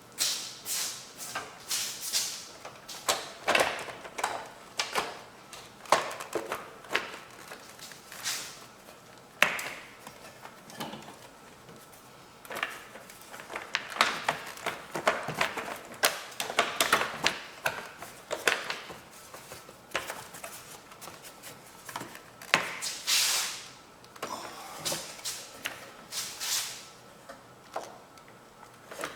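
Hand tools and mower engine parts being handled: irregular clicks, knocks and short scraping rattles of metal and plastic pieces.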